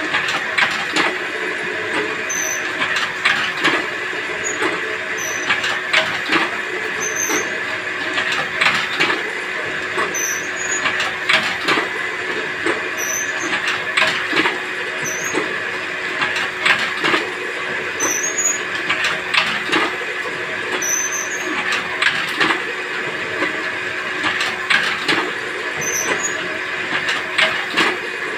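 Paper-plate making machine running steadily with a continuous motor hum, its press cycling about every two seconds with a clack and a brief high squeal or hiss on each stroke as foil-paper plates are pressed.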